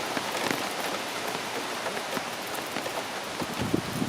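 Heavy hurricane rain hissing steadily, its drops pattering on hard surfaces, with a low rumble of wind coming up near the end.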